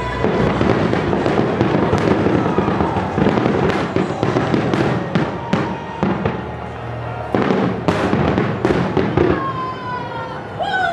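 Aerial fireworks going off in rapid succession: many sharp bangs close together over continuous crackling.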